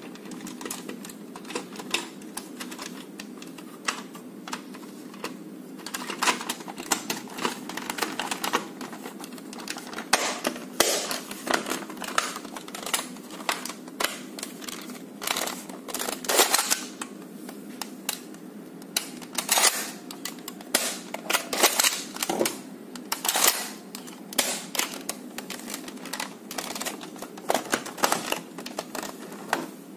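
Hard plastic clicking, tapping and knocking as the shell halves and parts of a Nerf Retaliator blaster are handled and pressed together, coming in irregular flurries, over a steady low hum.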